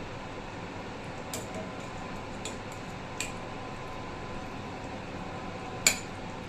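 A few light clinks of kitchen utensils against cookware, the loudest near the end, over a steady hiss.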